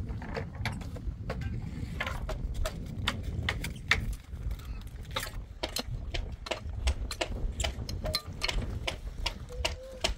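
Hand work with metal tools on stone and gravel: many sharp clicks, knocks and scrapes, first a shovel scraping mortar in a steel wheelbarrow, then a long-handled tool levering flat rocks out of stony soil, the rocks clattering.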